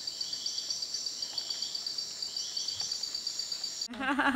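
A steady high-pitched chorus of trilling insects, with softer chirps repeating beneath it. It cuts off suddenly near the end, and a woman's laughing voice begins.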